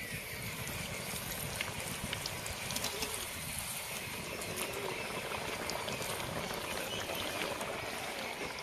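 Malpua batter deep-frying in hot oil in a kadhai: a steady sizzle with scattered crackles.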